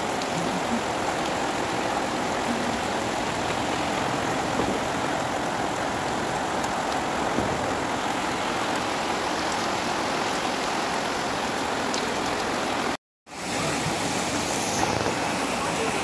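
Heavy rain falling in a steady rush, mixed with running water. The sound cuts out completely for a moment about thirteen seconds in.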